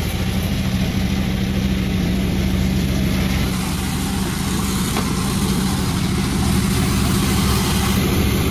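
Engine of a Panda36 wood-sawing machine running steadily at a constant pitch.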